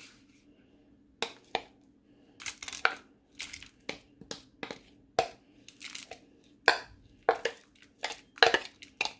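Finely chopped red chilies and garlic being scraped out of a glass bowl and tipped into a plastic tub: a run of short, irregular scraping and rustling strokes, louder in the second half.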